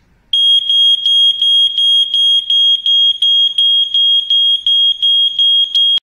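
SUMRING SR-826PHS 10-year photoelectric smoke alarm sounding its loud, high-pitched alarm tone, pulsing about three times a second, then cutting off suddenly.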